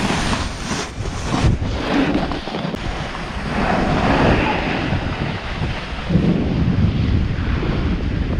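Wind buffeting a GoPro's microphone during a snowboard run, over the hiss and scrape of the board sliding and carving on groomed snow. The hiss swells for a second or so about halfway through.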